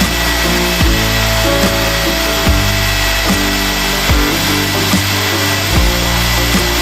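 Background music with low bass notes changing about every second, over a steady hiss.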